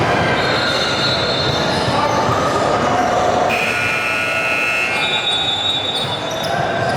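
Basketball gym during a youth game: steady crowd and court noise, cut through by three separate high-pitched squeals of about a second each.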